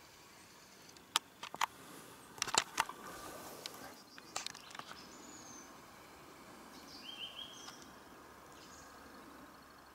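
A burst of sharp clicks and rustling close to the microphone in the first half, from the camera being moved and handled. Then a few short high bird chirps over faint outdoor background.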